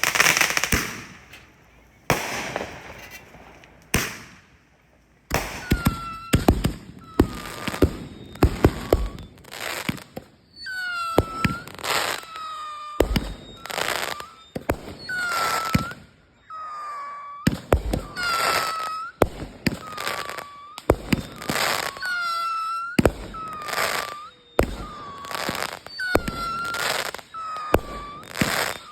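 Consumer fireworks going off: a few sharp bangs and crackling at first, then after a brief pause a steady run of shots about one a second, each followed by a short whistling tone.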